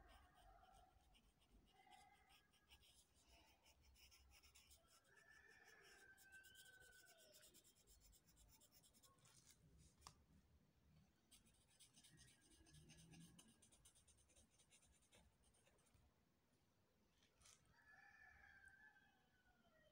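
Faint scratching of a graphite pencil on paper in quick back-and-forth shading strokes. A few faint pitched sounds come and go in the background.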